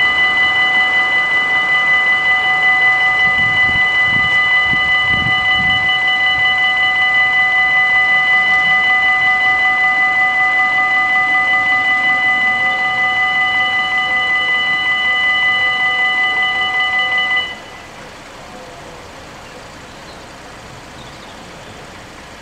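Level-crossing warning bells ringing as the barriers come down: a fast, even ringing in several fixed tones that cuts off suddenly about seventeen seconds in.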